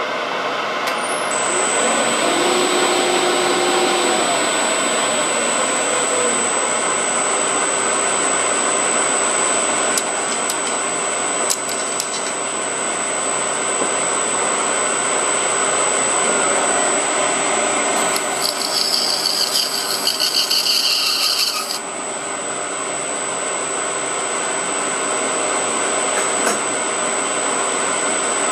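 Metal lathe running, a tool cutting the spinning metal stock, with a steady thin high whine. For about four seconds past the middle, a louder, fluttering high-pitched screech joins in.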